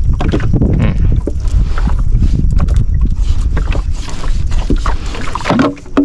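Steady low rumble of wind and water around a small boat, with scattered knocks and splashes throughout.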